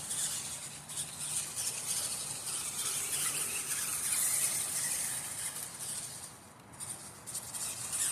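RC monster truck driving: a high, steady whirring hiss from its motor and drivetrain that drops away briefly about six and a half seconds in, then picks up again.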